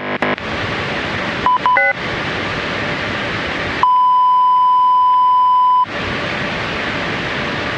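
Steady static hiss from a fake emergency broadcast that has gone off the air. About one and a half seconds in come a few short beeps and a quick run of stepped tones. About four seconds in the static cuts out for a single steady beep tone lasting about two seconds, then the static resumes.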